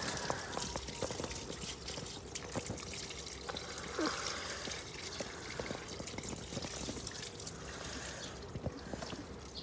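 Water pouring and trickling over a dog during a bath, with scattered small knocks and splashes.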